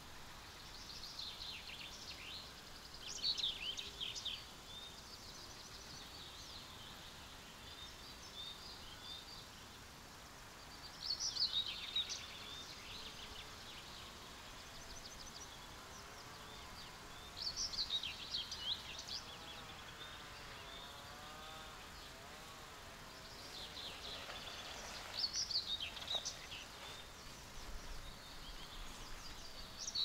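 A songbird singing short, loud, high phrases with quick downward sweeps, one about every six to seven seconds, over a faint steady chirping. A faint wavering, lower-pitched sound comes through midway between phrases.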